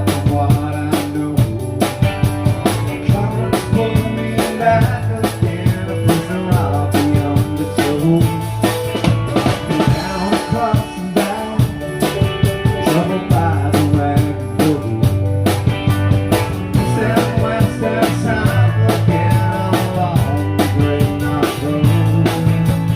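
Live rock band playing an instrumental passage, drum kit and electric bass guitar to the fore.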